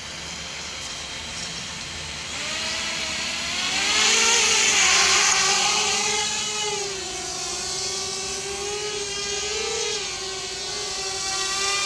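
Sharp 250 FPV racing quadcopter's brushless motors spinning up with a rising whine about two seconds in, loudest as it lifts off, then a steady hovering whine whose pitch wavers up and down.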